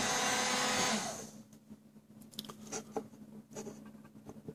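Hot-air blower running, used to shrink the battery's plastic wrap, switched off about a second in and spinning down. Then faint clicks and taps as the lithium battery cell is handled.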